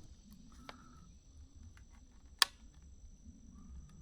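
Trail camera's case snapping shut: one sharp click about two and a half seconds in, with a few small ticks around it. A faint, steady, high insect drone runs underneath.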